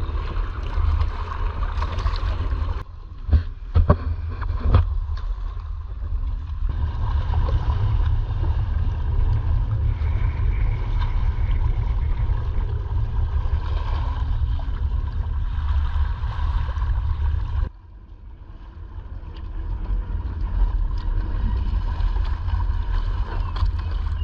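Wind buffeting an action camera's microphone, with choppy sea water lapping and splashing against a kayak hull. A few sharp knocks or splashes come about three to five seconds in, and the rumble drops away suddenly about two-thirds through, then builds back.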